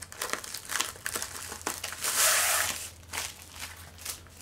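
Thin plastic bag crinkling as a diamond-painting kit is rolled and folded back into it, with a louder, longer rustle about two seconds in.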